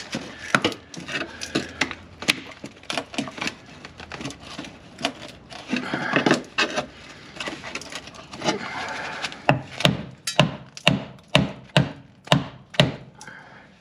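Hand tool scraping and chipping at the rusted sheet-steel floor of a Range Rover Classic's footwell: irregular sharp taps and scrapes, with a quicker run of taps, about three a second, in the last few seconds.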